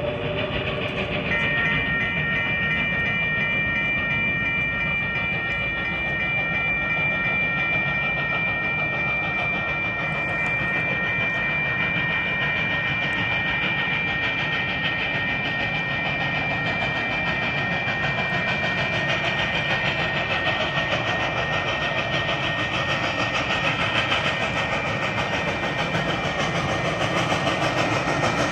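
Grade-crossing warning bell ringing steadily from about a second in until near the end, over the low rumble of the approaching Reading & Northern 425, a Baldwin 4-6-2 steam locomotive. The locomotive's chime whistle sounds briefly at the very start and again at the end.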